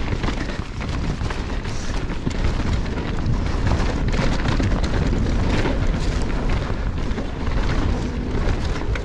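Mountain bike descending a dirt singletrack at speed: wind buffeting the GoPro Hero 8's microphone in a constant low rumble, over the hiss of tyres on dirt and gravel and frequent sharp clicks and rattles from the chain and bike over bumps.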